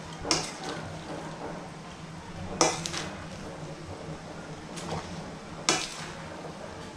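Metal spoon stirring and tossing vegetables in a stainless steel pan, with softer scrapes and three loud clanks of metal on the pan spread through.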